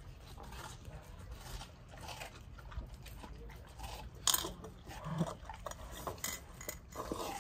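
Labradors and a person eating watermelon: irregular wet chewing, crunching and slurping, with one sharper, louder noise about four seconds in.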